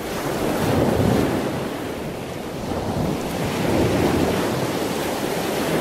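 Steady rushing noise of wind and water, with no engine tone standing out. It gently swells and eases.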